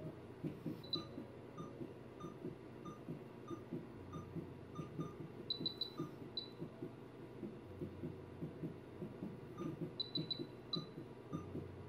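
Surgical monitor beeping with an anaesthetised dog's pulse, short even beeps about one and a half a second, over a low, fast fluttering noise. Quick clusters of higher chirps come about five and a half seconds in and again near the end.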